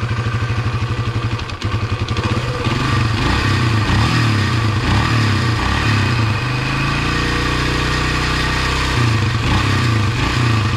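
1976 Honda XL175's single-cylinder four-stroke engine idling, then revved up and down several times from about two seconds in. It is held at a steadier higher speed for a couple of seconds and drops back toward idle near the end. The revs warm the engine and circulate its fresh oil through the centrifugal oil filter.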